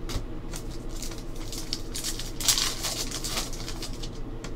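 Foil trading-card pack wrapper crinkling and rustling as it is handled and opened, with a dense flurry of crackling about halfway through.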